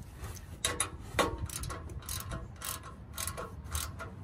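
Small metal bolts and fasteners clicking and tapping as they are handled and fitted by hand at a car's fog light mount: about a dozen irregular light clicks, the sharpest about a second in.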